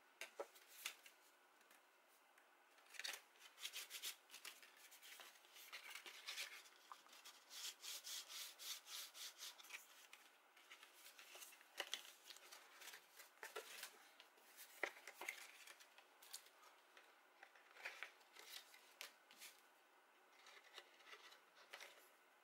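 Faint, intermittent rustling and rubbing of cardstock as a paper waterfall card is handled and its panels slid and flipped, with small light taps.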